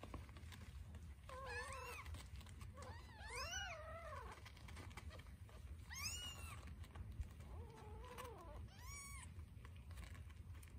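Newborn kittens mewing while jostling for teats as they nurse: about five short, high, rising-then-falling cries, two of them overlapping a few seconds in.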